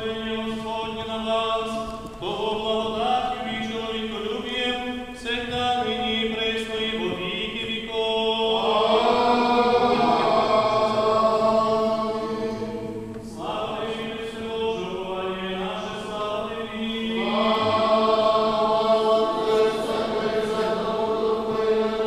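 Church choir singing Eastern-rite liturgical chant in several parts over a held low note, swelling louder about eight seconds in and again near the end.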